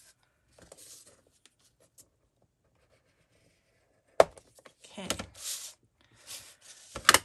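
Cardstock being scored on a plastic scoring board: quiet at first, then a sharp click about four seconds in and several short scraping strokes as the scoring tool is drawn along the groove.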